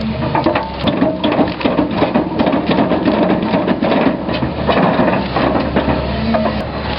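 Excavator engine running steadily under a dense, irregular crackle and crunch of splitting wood as the machine tears out tree stumps.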